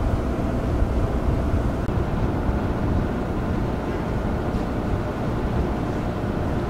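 Car ferry Toba-Maru under way: a steady low rumble of the ship's engines with water rushing along the hull, and a faint steady machinery hum.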